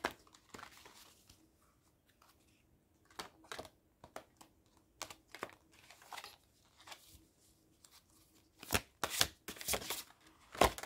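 A deck of oracle cards being shuffled and handled by hand: irregular short card flicks and rustles, louder and quicker near the end.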